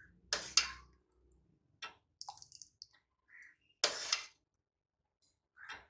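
A serving spoon knocking and scraping against a kadhai as thick cooked chutney is dished out into a bowl: a few short clinks, with a longer scrape about four seconds in.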